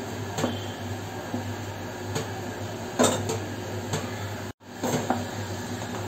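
Wooden spatula stirring thick milk in a pan, with scattered light knocks and scrapes of the spatula against the pan's sides and bottom.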